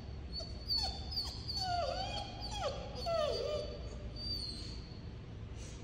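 Mixed-breed dog whining in about four short, high, mostly falling whimpers during the first few seconds, the sound of an anxious, reluctant dog.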